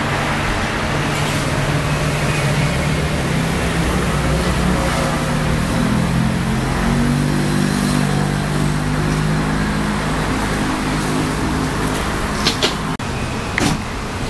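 Road traffic noise with a vehicle engine running close by; its low hum swells through the middle and then fades. Two short sharp clicks come near the end.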